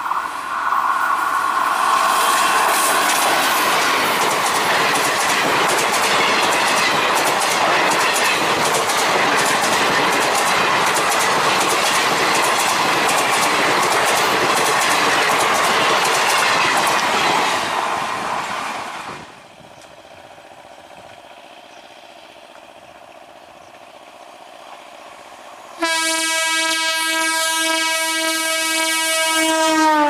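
An electric-hauled express train with ICF coaches passing at speed: a loud, continuous rush of wheels on rail with rapid clickety-clack over the rail joints, fading about 19 seconds in. About 26 seconds in, a train horn sounds a loud steady chord that drops in pitch near the end as the train passes.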